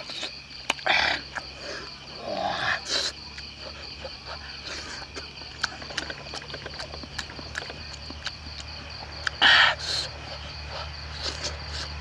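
A steady drone of night insects under many small wet clicks and smacks of someone eating grilled fish with his fingers. There are two louder smacks, one about a second in and one near the end.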